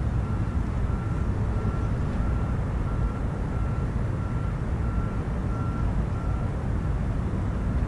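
A steady low rumble with a faint high beep repeating a little under twice a second.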